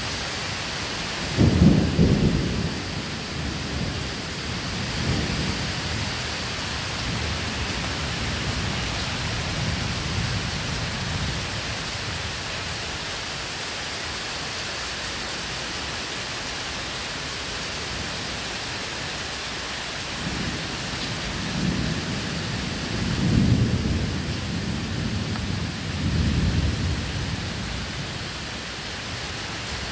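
Thunderstorm with steady rain and rolling thunder. A loud rumble comes about two seconds in, fainter rumbles follow, and a run of several more rumbles comes near the end.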